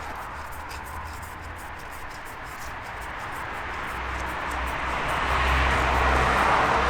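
Rumble of a passing motor vehicle, an even rushing noise with a low undertone that swells steadily louder through the second half.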